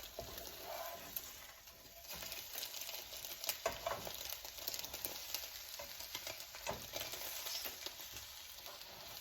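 Food sizzling in a hot frying pan while a spatula scrapes and clicks against the pan, turning it over.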